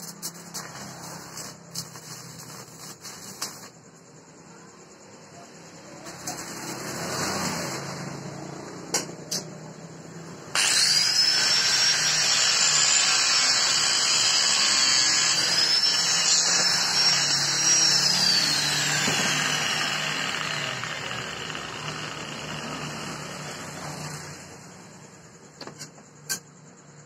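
Handheld angle grinder cutting steel. A loud, hissing cutting noise with a wavering high whine starts abruptly about ten seconds in, holds for several seconds, then dies away gradually. Scattered clicks and knocks of metal being handled come before and after it.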